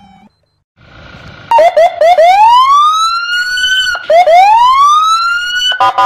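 Police car siren: a few quick yelps, then a long rising wail, the pattern sounding twice, starting about a second and a half in.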